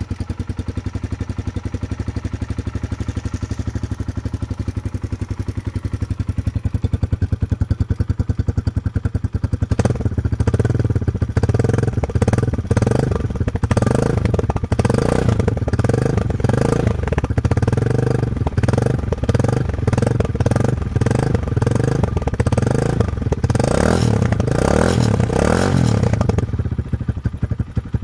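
Kawasaki KLX150's single-cylinder four-stroke engine running through its stock muffler, which has been opened up by cutting the inner tube and removing the internal end cap for a louder exhaust note. It idles evenly at first, then from about ten seconds in the throttle is blipped again and again, revving up and dropping back, before settling near the end.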